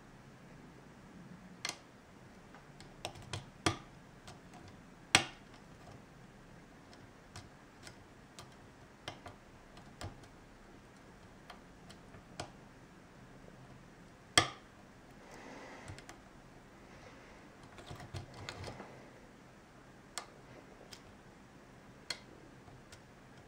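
Lock picking in an ASSA oval pin-tumbler cylinder: sporadic sharp clicks from the hook pick lifting the custom pins and the plug's slight counter-rotation under tension, with two loudest clicks about five and fourteen seconds in. Brief light scraping of the pick in the keyway comes in twice in the second half.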